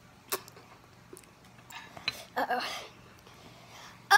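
A child eating spicy ramen noodles from a bowl with a fork: a sharp click, then a short stretch of slurping and mouth noises with a brief low vocal sound about two and a half seconds in.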